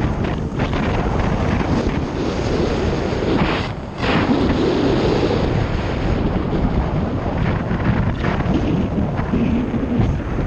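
Heavy wind buffeting the microphone on a moving motorcycle, with a short lull about four seconds in.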